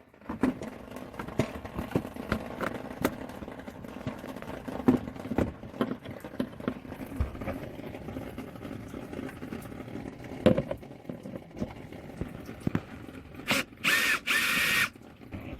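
Screws being taken out of a bumper bezel: scattered small clicks and knocks of handling, then a power drill-driver whirring in two short runs near the end.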